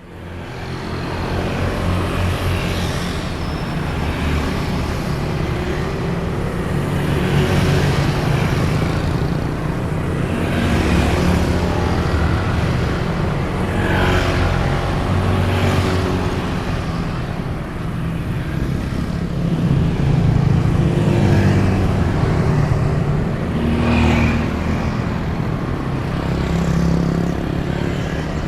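Road traffic: a steady stream of vehicles, motorcycles among them, passing one after another over a continuous engine rumble, each pass-by swelling and fading every few seconds. The sound fades in at the start.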